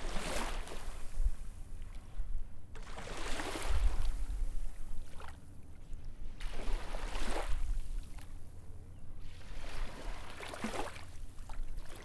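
Water washing in slow swells, about one every three and a half seconds, over a low rumble.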